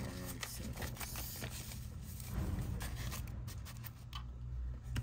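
Paper banknotes rustling and scraping against each other as a hand fans, sorts and slides a stack of bills into a cash organizer, in a run of short, irregular scratchy strokes.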